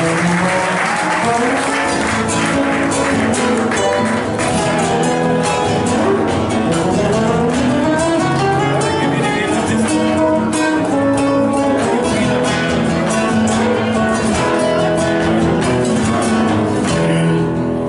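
Folk music with rapidly strummed guitar and a moving melody.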